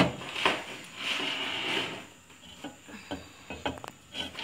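Clay lid being set and shifted on a pitha mould over a gas stove: a knock, a scraping rub, then a few light clinks of clay on clay and metal.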